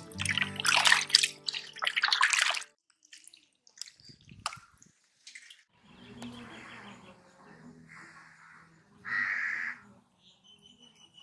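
Water sloshing and splashing as raw turkey pieces are washed by hand in a pot, stopping about two and a half seconds in. After that, only faint scattered sounds, with a bird chirping near the end.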